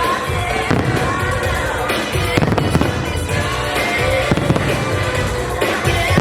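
Fireworks bursting again and again at an irregular pace, with show music playing over them.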